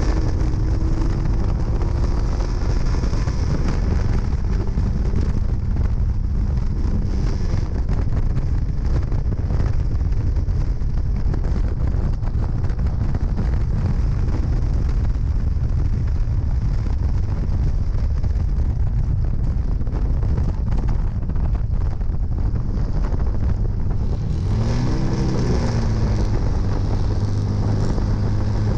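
1968 MG Midget race car's four-cylinder engine running hard under load, with heavy wind buffeting on the microphone in the open cockpit. About 25 seconds in the engine note drops and settles to a lower steady pitch as the car slows.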